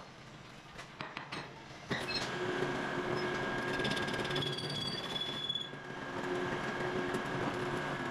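Metalworking machinery running with a steady high-pitched metallic whine, set off by a sharp metal knock about two seconds in, with scattered clicks and rattles.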